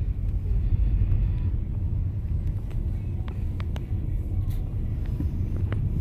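Low, steady rumble inside a Jeep's cabin, with a few faint clicks and taps as a plush toy bird is handled.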